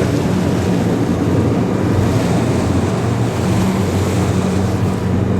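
Boat underway: a steady low engine hum under wind buffeting the microphone and water noise.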